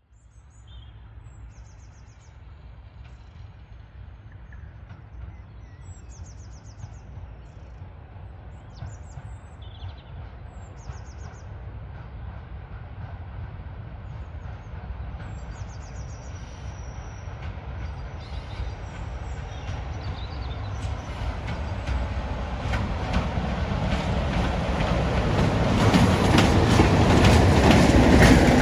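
Class 33 diesel-electric locomotive approaching with a train of coaches, its Sulzer eight-cylinder engine rumbling and growing steadily louder. From about two-thirds of the way in, the wheels click over the rail joints as the locomotive and coaches pass. Birds chirp faintly in the first half.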